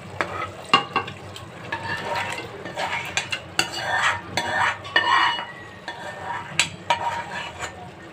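Mutton curry scraped out of a bowl and spread over half-cooked rice in a nonstick pan with a spoon: irregular scraping and clinks of the spoon on bowl and pan, with a light sizzle as the gravy meets the hot rice.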